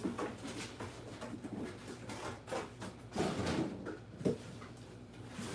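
Kitchen rummaging: scattered knocks and clicks of cupboard doors, drawers and containers being handled, with a louder clatter about three seconds in and a sharp knock just after four seconds, over a faint steady hum.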